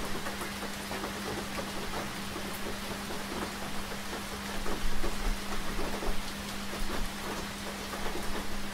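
Steady rain falling, with many small drops ticking on a surface. A steady low hum runs underneath, and there is a brief low thump about five seconds in.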